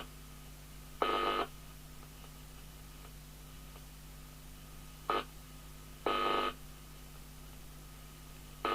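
Short electronic buzzer beeps, four in all, each under half a second, over a steady low mains hum.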